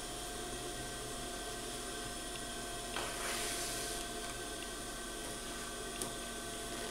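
Soft swish of thread being drawn through wool fabric during hand basting, one brief swish about three seconds in and a small click near the end, over a steady faint hiss and hum.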